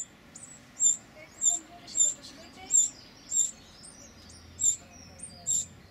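Winter wren fledglings giving high-pitched begging calls at the nest-box entrance: a series of sharp, short cheeps about every half second, with fainter calls between.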